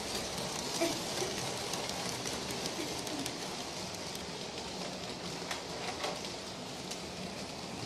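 Large-scale toy train running around its track: a steady whirring motor with the patter and clatter of its wheels on the rails.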